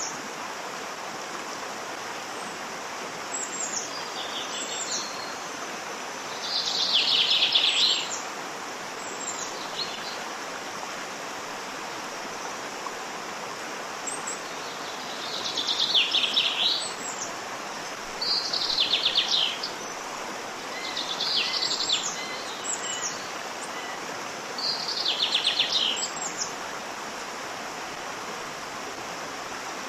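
Waterfall rushing steadily, with a songbird singing about five short trilled phrases, each about a second long, and some brief high chirps over the water.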